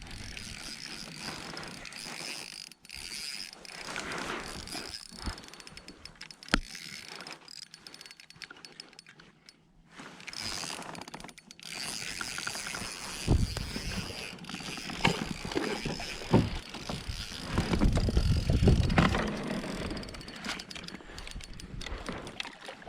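Fishing reel being cranked, its gears clicking, as a hooked fish is reeled in. Several knocks and bumps in the second half as the fish is brought to the kayak.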